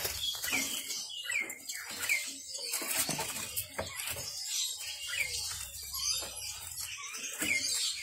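Caged songbirds chirping: short, high, falling chirps every second or so, mixed with scattered sharp clicks.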